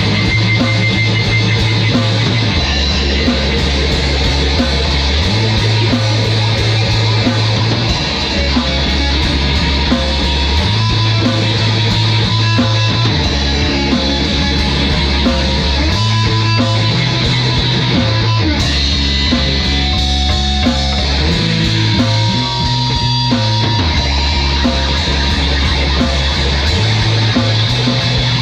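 Heavy rock music with electric guitar, bass and drums, the bass line moving between notes every few seconds under steady drum hits.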